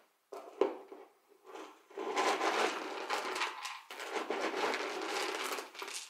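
Dry cat kibble rattling in a plastic pet-food bin as it is handled, in two long stretches of about two seconds each, after a few knocks of the plastic about half a second in.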